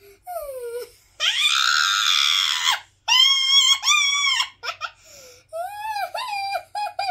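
A young girl's high-pitched shrieking laughter: a falling squeal, a long shriek about a second in, then high squeals and a quick run of short giggles near the end.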